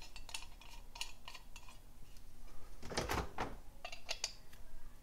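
Light metal clicks and clinks as the fuel-filter nut is fitted to a Weber 32/36 carburetor's top cover and a combination wrench is set on it, with a louder clatter about three seconds in.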